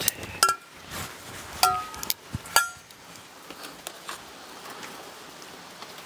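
Stainless steel camp pot and tongs clinking as food is dished out: three sharp metal clinks with a short ring in the first three seconds, then only a faint steady hiss.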